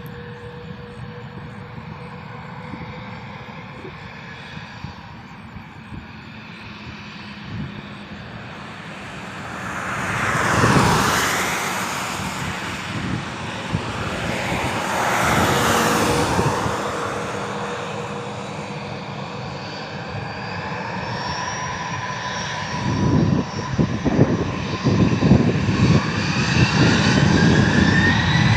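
Airplane engine noise swelling as an aircraft passes overhead, loudest about ten and fifteen seconds in, with a sweeping, phasing sound. Toward the end a rising whine and a heavy rumble build up and grow louder.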